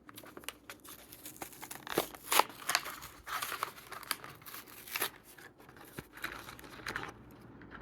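A Matchbox car's blister card being torn open by hand: irregular ripping of card and crinkling of the plastic blister, with the sharpest snaps about two seconds in and again near five seconds.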